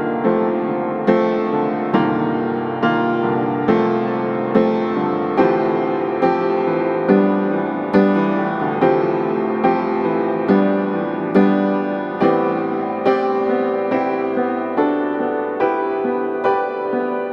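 Background piano music, with notes struck at an even, unhurried pace of about one a second.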